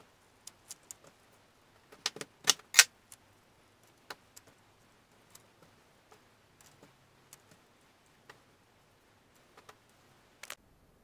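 Cut onion wedges being pulled apart into layers by gloved hands and set down on a cutting board: scattered crisp snaps and light taps, the loudest a quick cluster about two to three seconds in, with a pair more near the end.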